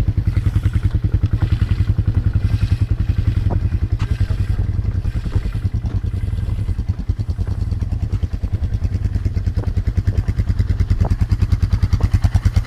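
ATV engine running with a rapid, even low pulse, getting somewhat louder near the end, with a few light clicks over it.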